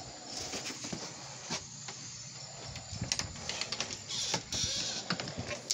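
Handling noise of a phone being carried about: scattered soft clicks and rustles, with a brief hiss a little past four seconds.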